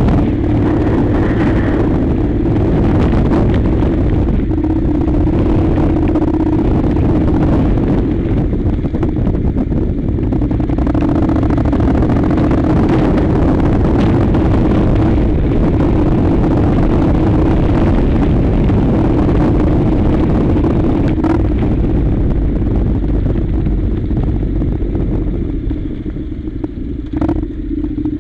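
Honda NC700's parallel-twin engine running at a steady pitch as the motorcycle rides a gravel track, with tyre and road rumble under it. The engine eases off briefly near the end, where a few sharp clicks of stones or clatter are heard.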